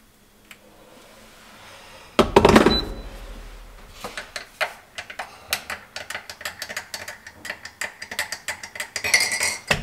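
A single heavy clunk about two seconds in as the electric kettle is set down on the kitchen counter, then a run of small irregular clicks and taps from a tea container and a drinking glass being handled while a Herbalife tea is made.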